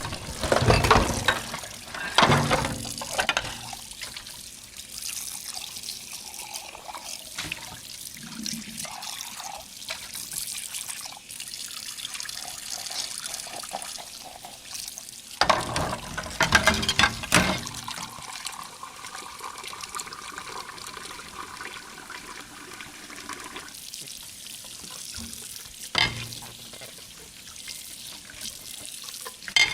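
Dishes being washed under a running kitchen tap: a steady flow of water into the sink, broken by loud bursts of dishes knocking and clattering against each other near the start and again about halfway through, with single knocks near the end.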